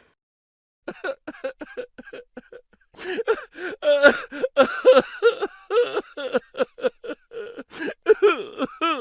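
A voice laughing in quick repeated bursts, sparse at first and then denser and louder from about three seconds in.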